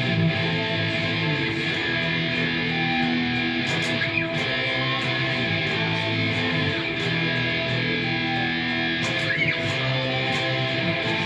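An Ibanez electric guitar played along with a recorded live band song.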